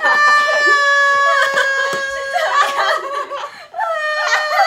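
Young women's voices: a long, high-pitched cry held at one pitch for about two seconds, then broken laughter-like sounds and another drawn-out high cry near the end.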